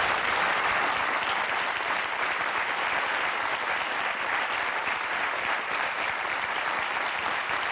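Studio audience applauding, a dense and steady clapping.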